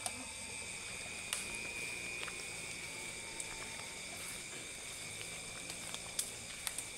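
Night insects chirring steadily in several high pitches, with scattered light clicks and rustles of footsteps through forest undergrowth.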